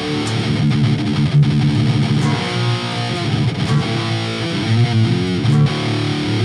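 Electric guitar played through distortion, running through riffs with shifting notes, from a repaired First Act jazz-style guitar.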